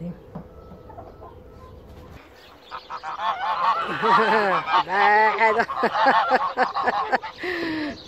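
A flock of domestic geese honking, many calls overlapping, starting about two and a half seconds in after a quieter opening.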